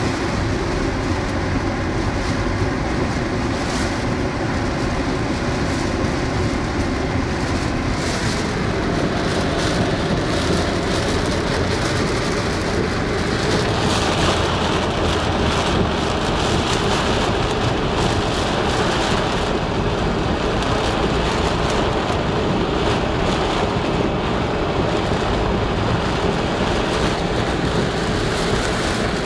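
Heavy rain pelting a moving car's roof and windshield, heard from inside the cabin over steady road and engine noise. The hiss grows stronger about halfway through.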